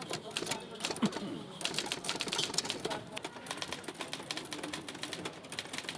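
Manual typewriter being typed on quickly: a dense, irregular clatter of key and typebar strikes.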